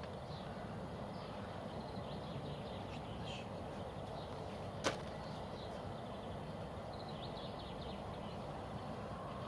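Outdoor morning ambience: steady low background noise with faint, scattered bird chirps, and one sharp click just before the middle.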